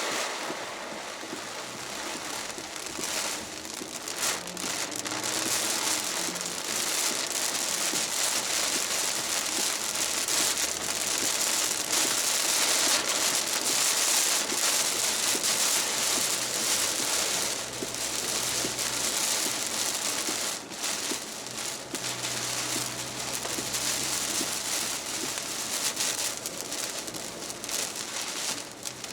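Heavy thunderstorm rain pouring down, a dense steady hiss that grows louder toward the middle and eases somewhat later, with a faint low hum underneath.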